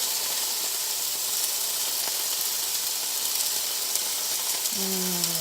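Sliced chicken sizzling in a hot frying pan, a steady hiss with faint crackles.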